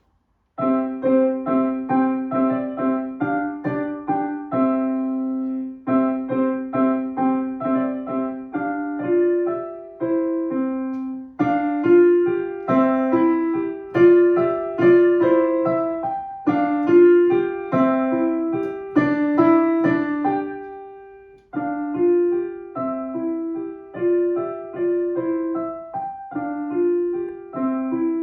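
Solo piano starting up after a pause, playing short, detached repeated notes and chords in a lively, even rhythm. The playing stops briefly a little past twenty seconds in, then carries on.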